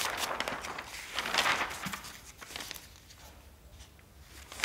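Large newsprint pages of a bound newspaper volume being turned by hand: papery rustling and crinkling, loudest about a second and a half in, then dying down.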